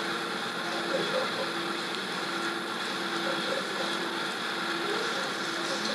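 Steady background hiss and a constant hum from an old live recording, with a few faint, brief voices from the listeners.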